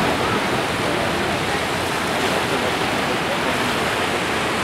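Small surf washing up the sand and around rocks, a steady rush of waves.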